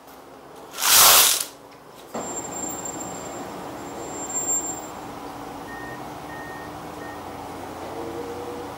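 Heavy construction machinery at an excavation site, an excavator and a drilling rig, working in a steady mechanical din, with three short high beeps about six seconds in and an engine tone coming in near the end. About a second in, a loud brief burst of noise comes first.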